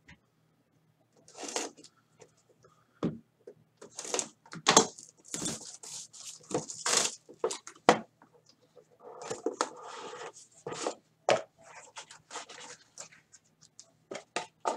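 Plastic shrink wrap being torn and crinkled off a baseball trading-card box in a run of sharp crackling rips, followed by the cardboard box being opened.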